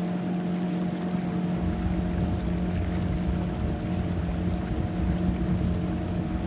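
Boat motor running at a steady pitch, with water and wind noise. A low rumble joins about a second and a half in.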